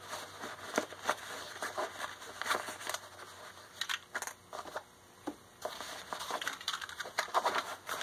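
Hands rummaging in a cloth tool roll: rustling of fabric with scattered sharp clicks and scrapes of small metal tools being moved and picked up.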